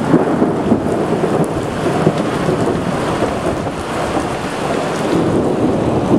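Heavy thunderstorm downpour: a steady, loud rush of rain pouring down, with no single thunderclap standing out.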